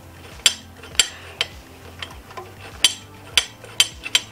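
Sharp metal clicks and taps, about seven of them at uneven intervals, as a metal rear brake master cylinder guard and its spacer are nudged by hand against the motorcycle frame to line up the mounting holes.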